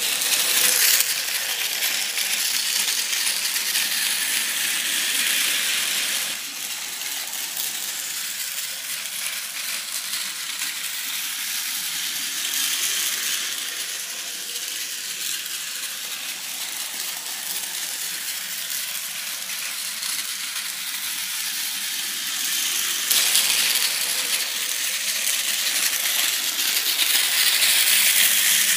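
Plarail toy Shinkansen train, a 200 Series, running on plastic track: the steady whirr and rattling clatter of its small motor, gears and wheels, growing louder as it runs close by about 23 seconds in.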